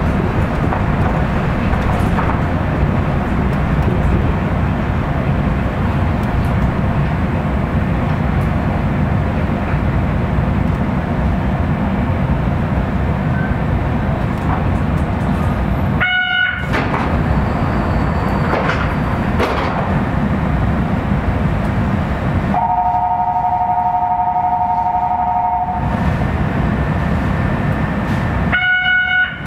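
Kitakyushu Monorail train running between stations: a steady low rumble of its rubber tyres and drive on the concrete track beam. Past the middle, a steady two-note tone sounds for about three seconds.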